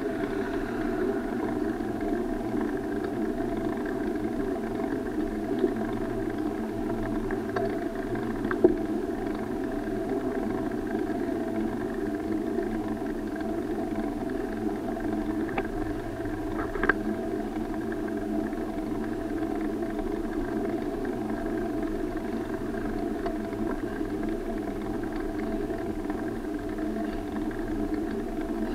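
Steady rumble of a bicycle ride on brick paving, picked up by an SJ4000 action camera, with a few sharp knocks, the loudest about nine seconds in.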